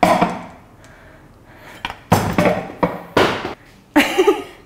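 A frosted cake on a glass cake stand dropped onto a wooden floor: a crash at the start, then a run of sharp knocks and clinks of glass about two seconds in, and another hit near the end.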